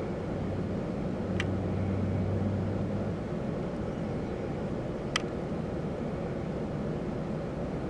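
Steady low rumble and hiss, with a low hum that fades out about three seconds in, and two sharp clicks, one about a second and a half in and one about five seconds in.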